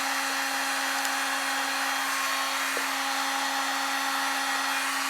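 Heat gun running at a steady pitch, a motor-fan whine with a rush of hot air, used to shrink heat-shrink tubing over a wiring harness. It is switched off at the very end and winds down.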